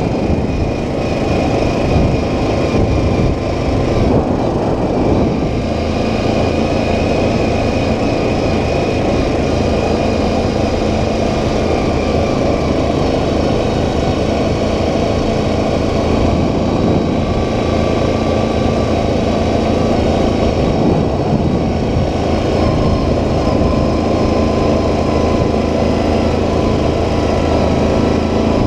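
ATV engine running at a steady trail-riding speed. It is a continuous drone with faint, steady whining tones above it.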